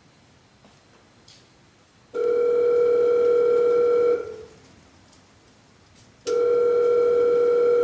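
An electronic telephone ring sounding twice, each ring a steady buzzing tone about two seconds long, with about two seconds between them.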